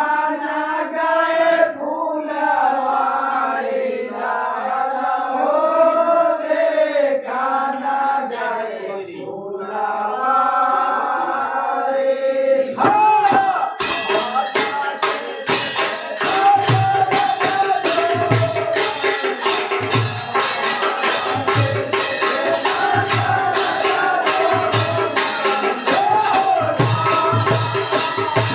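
A group of men singing a Holi folk song together, unaccompanied at first. About thirteen seconds in, the dholak and frame drum come in with a fast, steady rhythm and jingling percussion, and the singing carries on over it.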